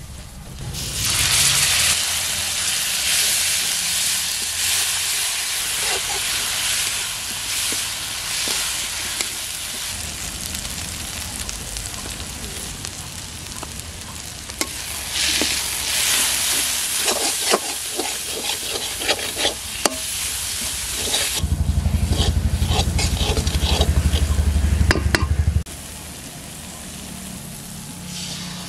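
Onion and spice paste sizzling in hot oil in an aluminium kadai, stirred with a metal spatula that scrapes and clicks against the pan now and then. Late on, a loud low rumble runs under the frying for about four seconds.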